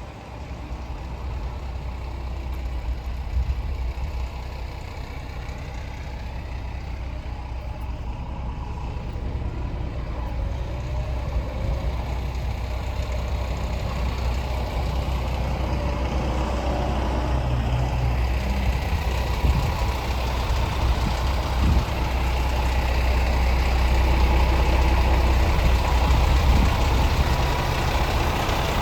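Scania R410 truck's 13-litre inline-six diesel engine idling, a steady deep drone that grows gradually louder.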